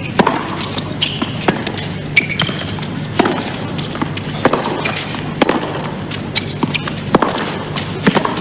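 Tennis rally on a hard court: sharp pops of racquet strings hitting the ball and the ball bouncing, roughly one every second, over steady arena background noise.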